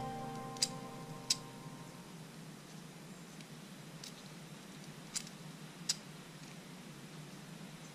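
Sharp plastic clicks in two pairs, the clicks in each pair about two-thirds of a second apart, from a small syringe being worked to operate a 3D-printed hydraulic disc brake caliper for an RC car. The last notes of background music fade out at the start.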